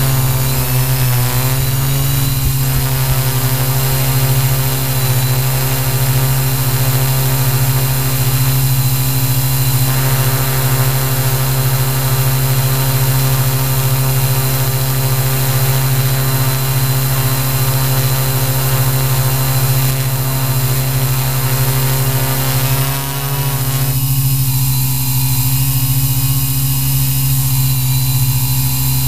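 Electric motors and propellers of a Q800 multirotor, heard from the aircraft itself, running with a loud steady drone while it hovers. The pitch wobbles in the first couple of seconds and again a little after three-quarters of the way through, as the motors speed up and slow down to hold position.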